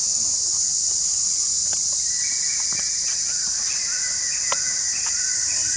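A steady, high-pitched drone of insects. From about two seconds in it is joined by short, repeated chirping calls and a few faint clicks.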